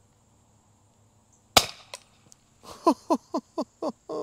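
A single sharp shot from the Microburst, a 3D-printed CO2-powered Nerf shotgun pistol, about a second and a half in, followed by a couple of faint ticks. Near the end comes a quick run of short sounds, each falling in pitch.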